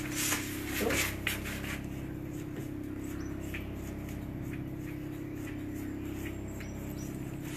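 A few light taps and scrapes of a fork and pastry brush on soft biscuit dough and a silicone mat, mostly in the first second or so, over a steady low hum.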